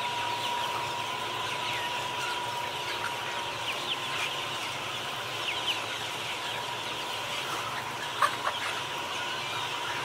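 A large flock of chickens calling all at once: a dense, continuous chorus of overlapping short peeps and clucks over a steady high hum. There is a single sharp click a little past eight seconds in.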